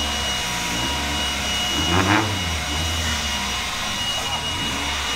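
Leaf blower running steadily, a strong rush of air with a constant high motor whine.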